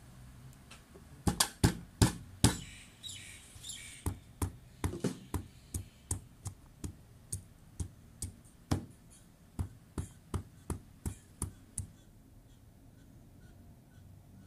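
Stone pestle pounding slices of fresh ginger on a cutting board to crush them: a series of sharp knocks, the four loudest close together near the start, then about two a second until they stop a couple of seconds before the end.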